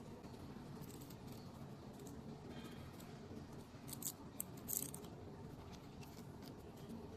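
A few short, faint clicks and scrapes of a plastic waterproof cable connector being handled and screwed together, about four to five seconds in, over a low steady hum.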